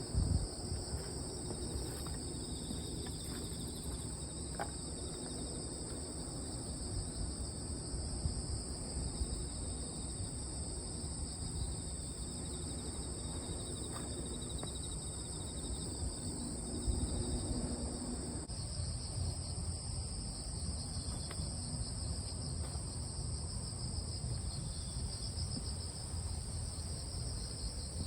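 Crickets singing in a steady chorus at two high pitches, over a low rumble. The mix shifts abruptly about two-thirds of the way through.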